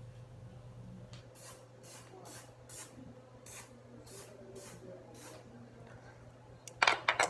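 About eight short hissing squirts of a spray, roughly half a second apart. Near the end comes a brief, louder clatter.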